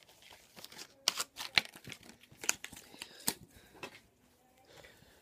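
Packaging being unwrapped by hand: irregular crinkling, crackling and tearing of wrapping, dying down about four seconds in.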